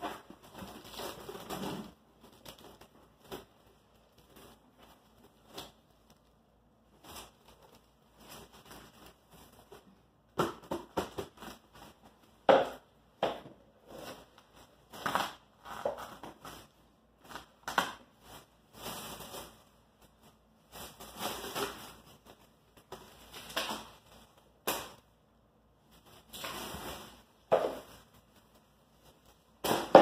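Clear plastic wrap crinkling and crackling as it is pulled and pressed around a birdhouse, in irregular bursts with sharp snaps in between.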